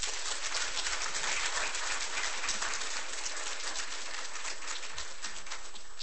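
Audience applauding: many hand claps blending into a dense patter that thins to a few last claps near the end.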